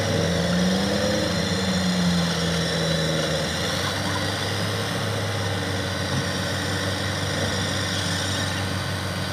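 Off-road 4x4 engine idling steadily, a low hum.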